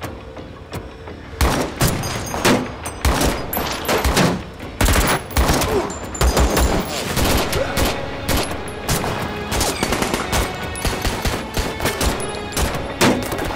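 Heavy gunfire: many shots in quick succession and in rapid bursts, starting about a second and a half in.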